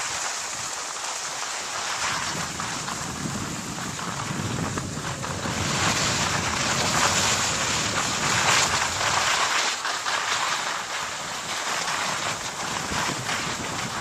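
Rushing noise of skis sliding over packed snow, mixed with wind buffeting the microphone, growing louder about six seconds in.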